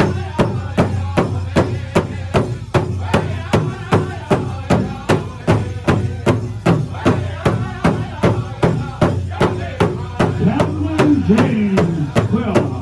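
Pow wow drum group: several drummers striking a big powwow drum together in a steady beat of about three strikes a second, with singers' voices over it that grow clearer near the end.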